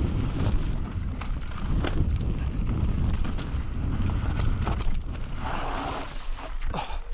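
Mountain bike rolling down a rough dirt trail, heard through a GoPro: wind buffeting the microphone over the rumble of the tyres, with scattered clicks and rattles from the bike over rocks and roots. A short hiss comes about five and a half seconds in.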